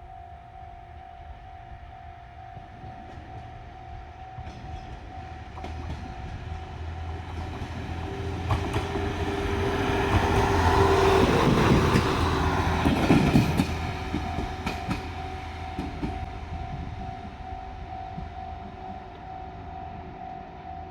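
A JR Shikoku Series 1500 diesel multiple unit passing: engine and wheel noise build up, peak about halfway through with sharp wheel clicks over the rail joints, then fade away. Under it, the level-crossing warning bell rings steadily, heard plainly before and after the train.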